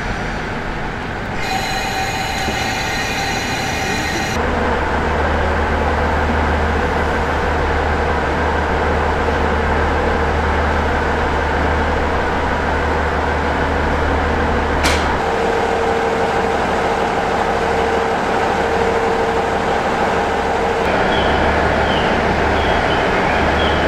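KiHa 40-series diesel railcar idling at a station platform: a steady engine hum and drone. A few seconds of several high steady tones sound about two seconds in, and a single sharp click comes about two-thirds of the way through.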